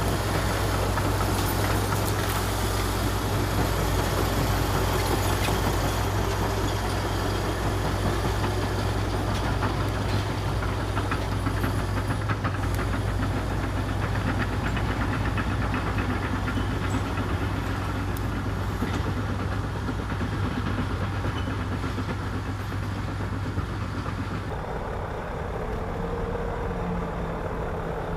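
Komatsu D61EX bulldozer's diesel engine running steadily under work, with faint clicks over a deep hum. About three seconds before the end the sound changes abruptly to a different, steadier note.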